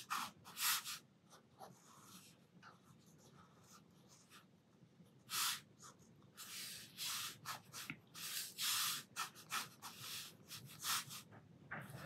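Sakura Pigma Micron fine-liner pen nib scratching across paper in short drawing strokes. A few strokes in the first second, a near-quiet stretch, then a busy run of strokes from about five seconds in.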